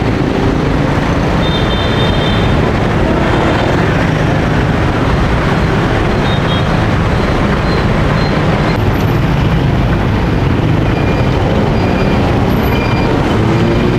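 Steady low rumble of street traffic, with a few faint high tones over it.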